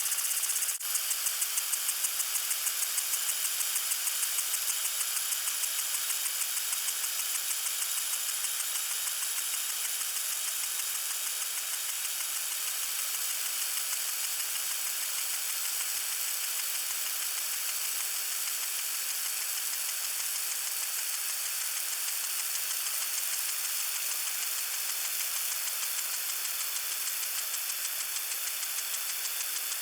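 Lawn sprinkler spraying water: a steady hiss with a fast, rhythmic pulsing. There is a single sharp click about a second in.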